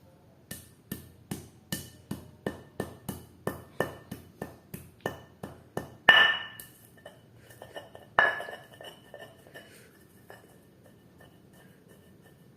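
Kitchen utensils working nutmeg: a run of quick sharp taps, about two and a half a second. Then come two much louder knocks a couple of seconds apart, each with a short metallic ring.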